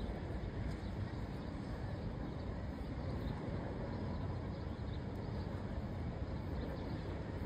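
Steady low rumble of a jet airliner's engines as it flies over on final approach.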